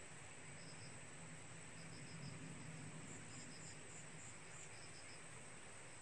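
Crickets and other insects chirping faintly: a steady high trill with short chirps in quick groups of three or four about once a second, over a low steady hum.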